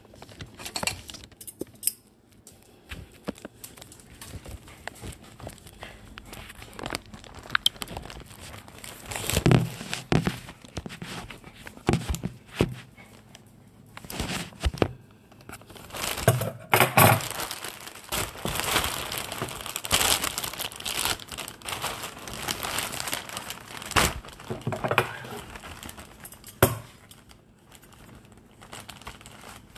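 A black plastic poly mailer bag being handled, crinkling and rustling in irregular bursts, with a few sharper knocks in between.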